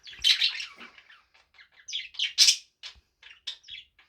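Budgerigar chattering in quick, scratchy chirps and squawks, the warbling chatter a budgie makes to its own reflection in a mirror.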